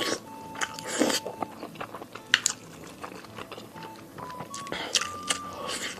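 A person biting and chewing pork knuckle close to the microphone, with irregular sharp clicks and mouth noises. A faint simple melody of held notes plays underneath.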